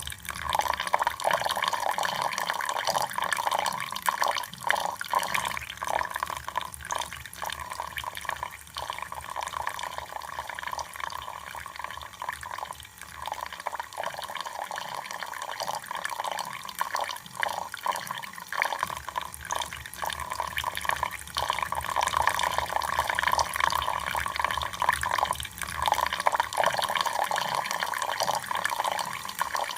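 Water running and splashing continuously, with many small irregular drips and splashes.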